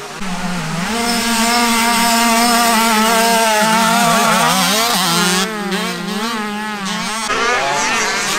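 Motocross motorcycle engines revving and easing off on a dirt track, the pitch rising and falling with the throttle. The sound changes abruptly twice, about five and seven seconds in, dropping somewhat in loudness after the first change.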